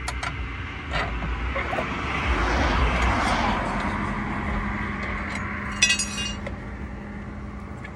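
A car passes on the road, its noise swelling and fading over a few seconds. A few sharp clicks and a short metallic clinking rattle about six seconds in.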